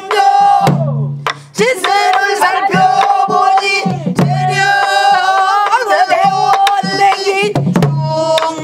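Pansori singing, with long held and bending notes, over strokes on buk barrel drums beaten with a stick. The voice breaks off briefly about a second in, then carries on.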